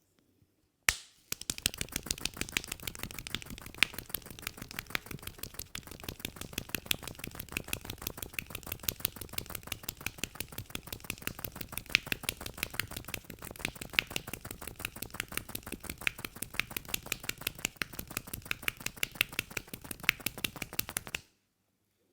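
Barber's hands tapping and chopping rapidly on the head during a head massage: a fast, steady run of sharp taps with louder strokes among them, starting with one sharp strike about a second in and cutting off suddenly near the end.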